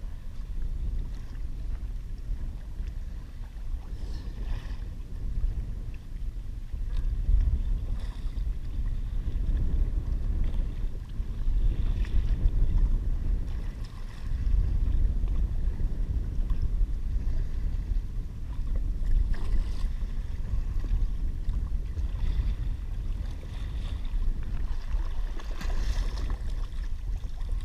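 Wind buffeting the microphone with a steady low rumble. Near the end, splashing as a hooked cero mackerel thrashes at the surface beside the kayak.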